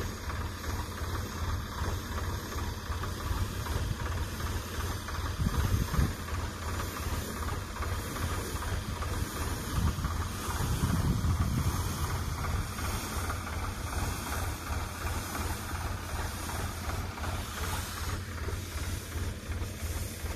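Tractor engine running steadily to drive a pesticide spray pump, under an even hiss, with a couple of louder swells in the rumble.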